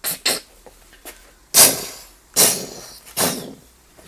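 A man's mouth-made imitation of a weapon firing: two short puffs, then three loud noisy blasts about 0.8 s apart, each dying away quickly.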